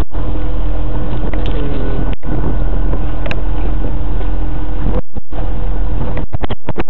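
Loud, steady noise aboard a boat under way at sea: wind buffeting the microphone over a steady engine drone. The sound cuts out briefly twice, about two seconds in and again about five seconds in.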